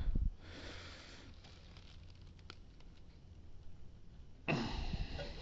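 Faint handling noise: a low thump at the start, a few light clicks in the middle, and a short rustle near the end.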